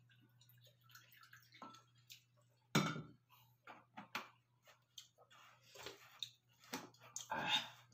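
Wet eating sounds from a boiled fertilized duck egg (balut) being eaten from a small bowl: chewing and lip smacks with light spoon clicks, a sharp sound about three seconds in, and a sip or slurp from the bowl near the end.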